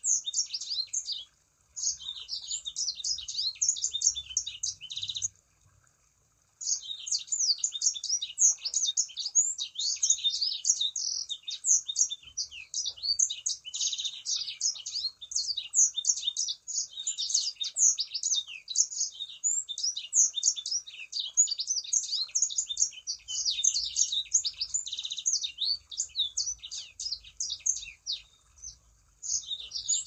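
A sanger, a songbird kept by Indonesian bird-keepers, singing a fast, continuous twittering song of high chirps. It breaks off briefly about a second in and again about five seconds in, and stops near the end before one short burst.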